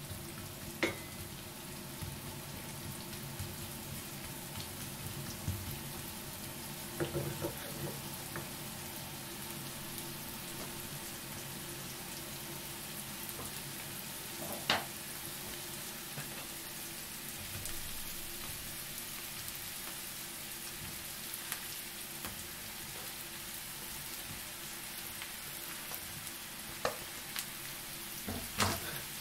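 Diced onions sizzling steadily in a frying pan, stirred with a wooden spatula. A few short knocks of the spatula against the pan, with a couple of clatters near the end as sliced mushrooms go in.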